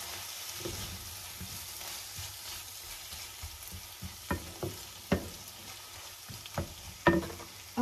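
Pasta and vegetables frying in a pan, sizzling steadily, while a wooden spoon stirs them. The spoon knocks against the pan several times in the second half, the loudest just before the end.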